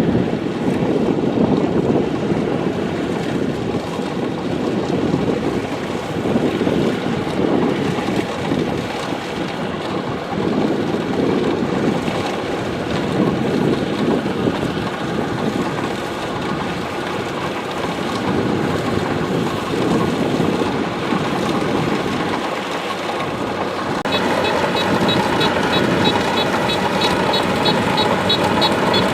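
Kubota DC-70 Plus combine harvester running steadily while harvesting rice in deep water: a continuous, loud engine-and-machinery sound. About five seconds before the end, a higher, evenly pulsing sound joins on top.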